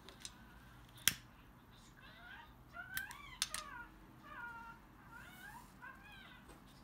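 Repeated short animal calls that rise and fall in pitch, with a few sharp clicks, the loudest about a second in.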